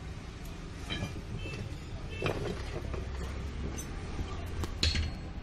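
Scattered metallic clinks and knocks of tools and steel parts, a few seconds apart, the loudest near the end, over a steady low rumble: work on a rear leaf spring being fitted under a van.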